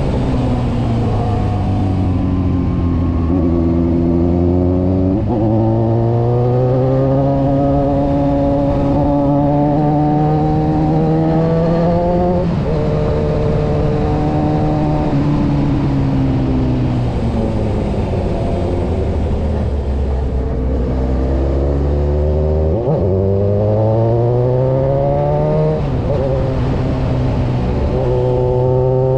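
Kawasaki motorcycle engine heard from on board while riding, over steady wind rush. The pitch sinks as it slows, jumps up sharply on a downshift twice, and climbs under throttle with a drop at each upshift.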